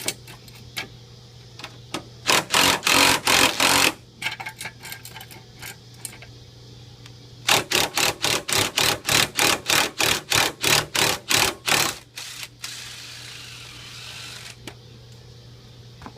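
18-volt cordless impact wrench hammering in quick, evenly spaced pulses as it drives a car jack's screw: a short run about two seconds in, then a longer run from about seven and a half to twelve seconds.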